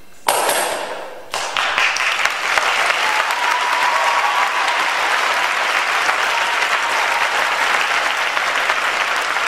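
Audience applause. It breaks out just after the choir's last note fades and settles into steady clapping from about a second and a half in.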